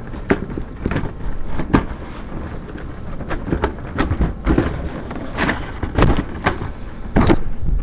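Plastic model kit parts being rummaged through and handled close to the microphone: irregular clicks, knocks and rustling.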